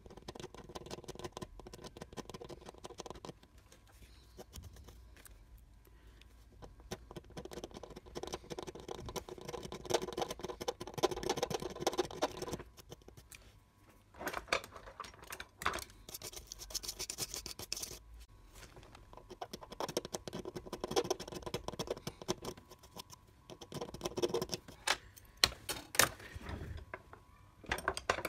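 Light scratching and clicking of tweezers working at an SMD LED on a TV backlight strip, coming in bursts with short pauses between them.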